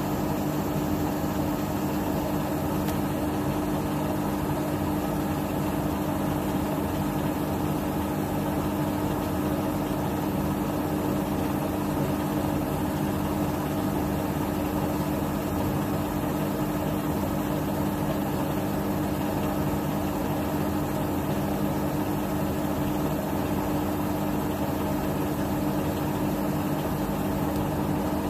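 Bosch Serie 6 WAT28490NL front-loading washing machine spinning its drum at high speed on a 1400 rpm spin-only cycle: a steady motor hum that holds one even pitch.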